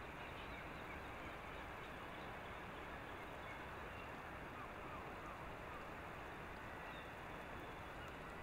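Steady outdoor background hiss, with a few faint, short bird calls.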